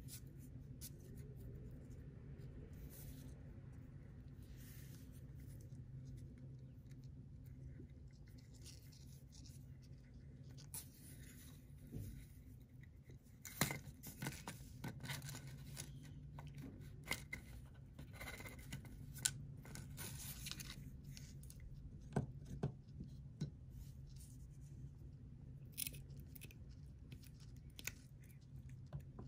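Faint rustling, scraping and scattered small clicks of hands handling and pulling tight nylon fishing line against a plastic bottle-cap feeder and beads, over a steady low hum.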